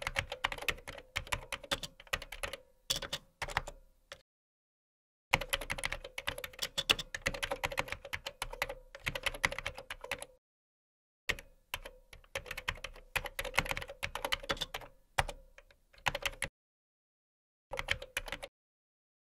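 Keyboard typing sound effect: rapid key clicks in runs of a few seconds, broken by three short silent pauses, matching text being typed out on screen.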